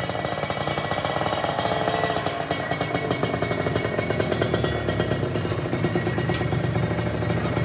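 Kawasaki Ninja RR's two-stroke single-cylinder engine running steadily through an aftermarket YY Pang exhaust, with a rapid train of exhaust pulses.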